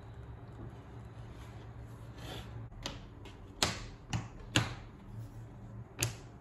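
Cut pieces of thick 3.5 mm leather being handled and laid down on a plastic cutting mat: a soft sliding swish, then several sharp slaps about half a second apart, and one more near the end, over a low steady hum.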